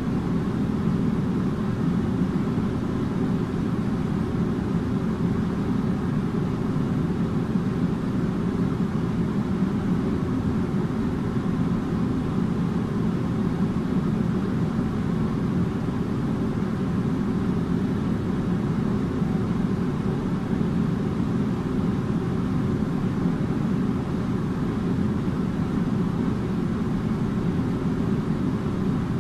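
Air conditioner running steadily: a constant low rushing noise of moving air with a faint hum underneath, unchanging throughout.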